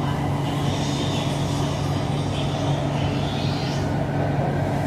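Steady running noise of a BTS Skytrain electric metro train with a constant low hum, heard from inside the moving car.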